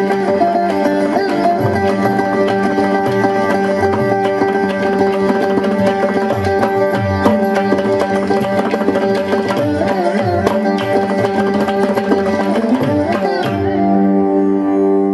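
Carnatic instrumental music: a veena plays plucked, sliding notes over a steady drone, with hand-drum percussion that stops about a second and a half before the end, leaving held notes.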